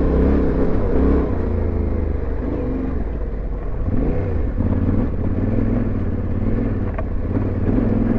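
Yamaha Ténéré 700's parallel-twin engine under way on a dirt track, its revs rising and falling with the throttle on a twisty climb.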